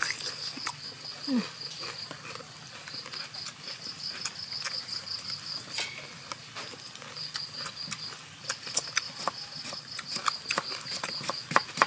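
Insects chirping steadily in a high, rapidly pulsing trill, over sharp clicks and crunches of people biting and chewing raw cucumber. Near the end come quicker taps of a knife cutting cucumber on a wooden cutting board.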